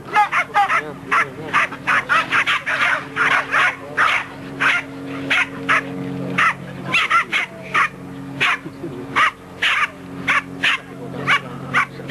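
Terriers barking over and over, several short, sharp barks a second, over a steady low hum.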